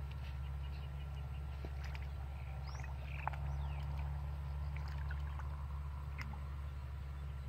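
A steady low hum throughout, with small splashes and squelches from hands digging in shallow mud and water, and a few faint bird chirps.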